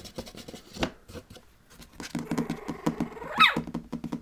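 Patterdale terrier puppies about three weeks old, scratching and shuffling, then a run of quick soft grunts and one short rising squeak about three and a half seconds in.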